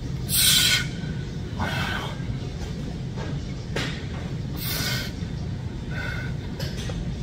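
Forceful exhales of breath, hissing, one with each dumbbell shoulder press: a loud one about half a second in, another near five seconds, with fainter breaths between, over a steady low gym rumble.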